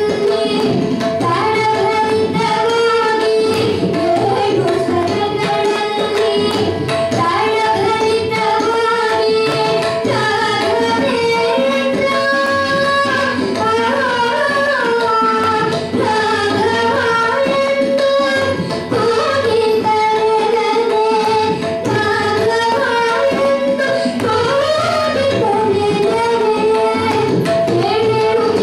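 Young boy singing in Carnatic style with tabla accompaniment over a steady drone.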